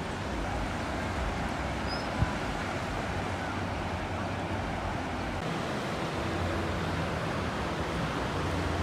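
River water rushing steadily over rocks and small whitewater rapids, with one short sharp knock about two seconds in.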